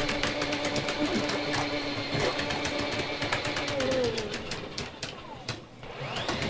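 A motor-driven machine runs with a steady hum and rapid clicking. About five seconds in it winds down, pitch falling, then spins back up near the end.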